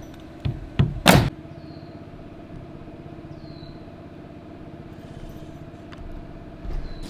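Steady drone of a small running engine, with three knocks in the first second or so, the last a short, loud bang.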